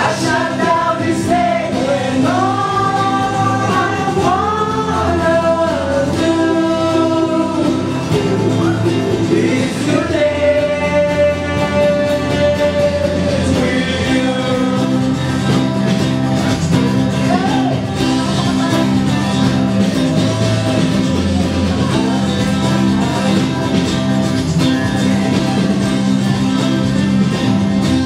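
Live band music: a man sings over an acoustic guitar and steady low accompaniment. His voice bends through runs for the first several seconds and holds one long note about ten seconds in.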